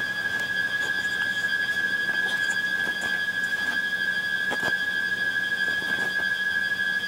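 A steady, high-pitched tone held without a break, with a few faint knocks about four and a half and six seconds in.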